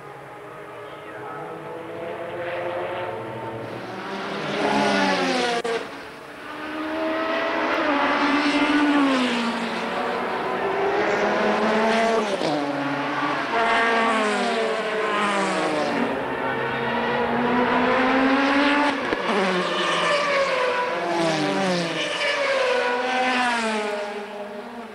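Group C prototype race cars going by one after another, their engines rising and falling in pitch through gear changes, several cars overlapping at once. It swells about four seconds in, dips briefly, then stays loud until near the end.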